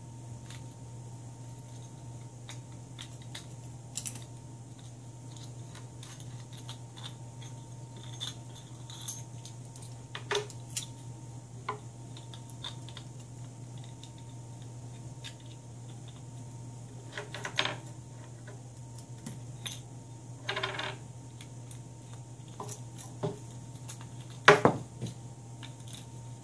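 Small metal hardware (washers, nuts, screws and a bolt) clicking and clinking as it is handled and fitted together by hand, in scattered taps with a few louder clinks, about ten, seventeen, twenty and twenty-four seconds in. A steady low hum runs underneath.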